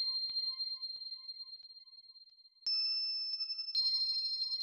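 Bell-like chime tones ringing and slowly fading: one already ringing at the start dies away, then a higher chime is struck about two and a half seconds in and another about a second later, both ringing on.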